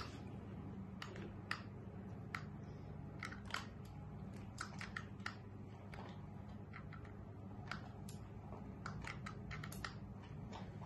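Light clicks and taps at irregular intervals as a kitten bats a black plastic toy mouse across a tile floor, over a low steady hum.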